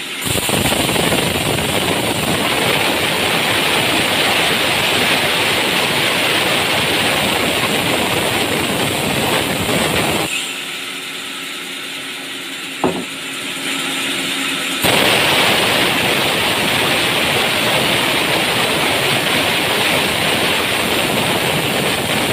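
Vertical band saw cutting lengthwise through a log, a loud dense noise. About ten seconds in, the cut eases off to the quieter steady run of the blade, with one sharp knock a few seconds later. The loud cutting noise comes back at about fifteen seconds.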